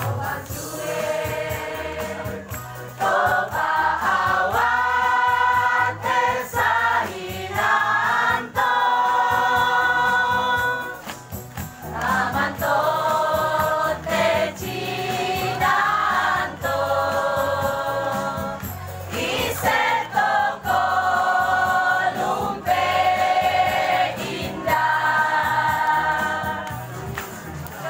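A choir of mostly women singing, in phrases of long held notes with brief pauses between them.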